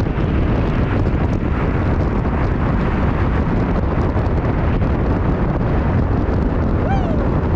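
Strong thunderstorm winds blasting the microphone in a loud, steady rush. A short falling squeak sounds near the end.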